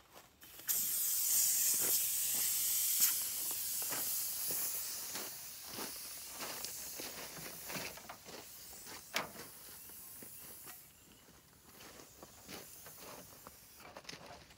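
Compressed air hissing out of a four-tire air-down hose system as a tire chuck is unhooked from a valve stem: the hiss starts suddenly about a second in and fades away over about ten seconds. Footsteps on gravel and small clicks of the fittings go on throughout.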